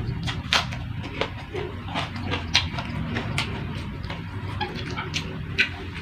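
A person chewing and eating close to the microphone: irregular wet mouth clicks and crunches, several a second, over a low steady hum.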